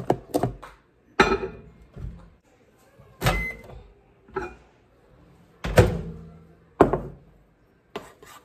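Microwave oven being used: a string of sharp thunks and clunks from its door shutting and opening and a bowl being set down, with a short electronic keypad beep about three seconds in.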